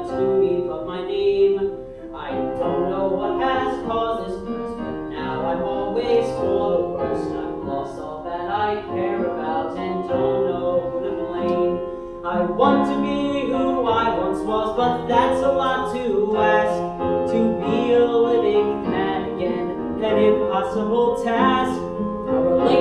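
Music: a man singing a show tune with instrumental accompaniment.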